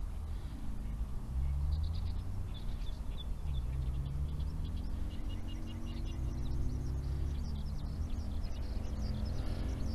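Outdoor ambience: small birds chirping in short repeated bursts over a low wind rumble on the microphone, with the drone of a passing vehicle slowly rising and falling in pitch near the middle.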